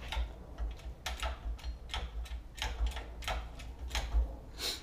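Irregular sharp metallic clicks and light knocks of hand tools and metal parts while an R180 rear differential is worked into place under the car, several a second, the loudest about four seconds in.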